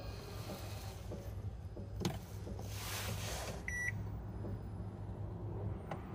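A single short electronic beep from a Toyota Noah Hybrid's dashboard as the hybrid system comes to READY after the power button is pressed. Two faint clicks, about two seconds in and near the end, sit over a low steady hum.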